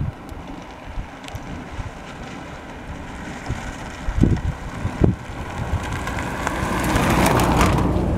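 A car approaching along the road and passing close by, its tyre and engine noise building steadily to a peak near the end. Wind buffets the microphone throughout, with gusts thumping about four and five seconds in.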